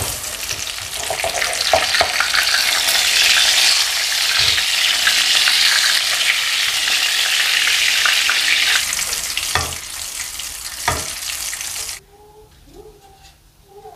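Hot oil sizzling in a wok as fried chilies, shallots and garlic are scooped out with a stainless-steel slotted skimmer, with light scraping and two sharp knocks. The sizzling cuts off suddenly about two seconds before the end.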